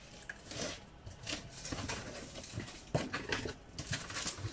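Rustling and soft knocks of a portable mini washing machine and its packaging being handled, with a sharper knock about three seconds in.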